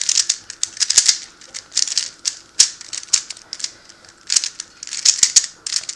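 A plastic 3x3 Rubik's-style speed cube being scrambled by hand: quick bursts of clicking layer turns with short pauses between them.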